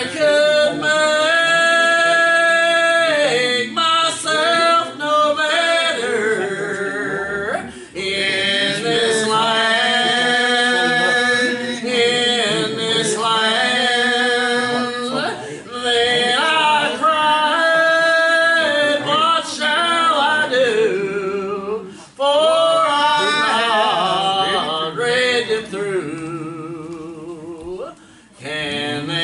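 Hymn singing: a voice or voices carrying a melody in phrases of a few seconds, with short breaths between them and a long held note with a wavering vibrato near the end.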